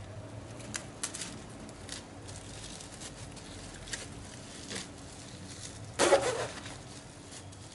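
Plastic cling film rustling and crinkling as a stuffed chicken roll is wrapped and rolled tight in it, with light scattered crackles and a louder burst of crinkling about six seconds in.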